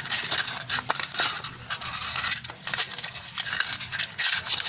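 1000-grit sandpaper rubbed against the metal of a Toyota Avanza brake wheel cylinder, making a run of uneven scraping strokes. The sanding takes dirt and rust off the cylinder before new rubber cups go in.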